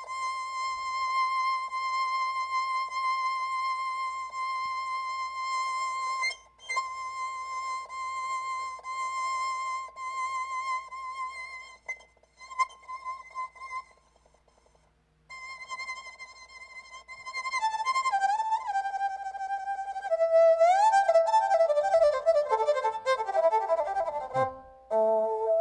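Keyboard playing an erhu-imitation sound: one long note held with vibrato, broken by short gaps and a brief pause, then sliding up and down between pitches and ending in a quick run of falling notes. The slides and vibrato come from the player's hand gestures on the keyboard.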